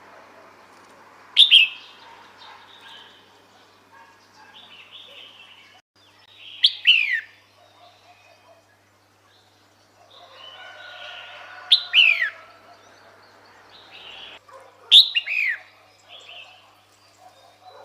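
Female red-whiskered bulbul calling: four short, loud calls that each sweep down in pitch, spaced a few seconds apart, with fainter chirps between. This is the female's call that draws males to her.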